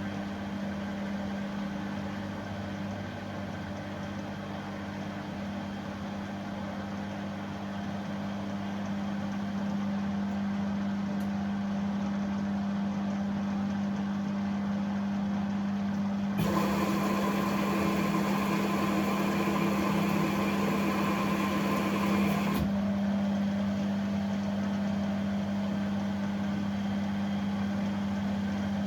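An appliance running a quick wash cycle with a dishwasher tablet gives a steady motor hum. About sixteen seconds in, a louder rush of noise with a steady whine starts and stops abruptly about six seconds later.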